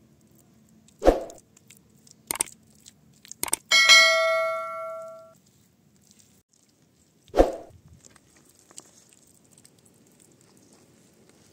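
A few knocks, then a clang that rings for about a second and a half, and a heavy thud a few seconds later.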